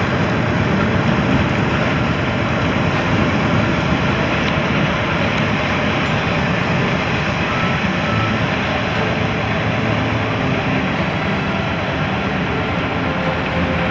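The car ferry Princess Seaways' engines and propellers rumbling steadily close by, with its wake churning the water.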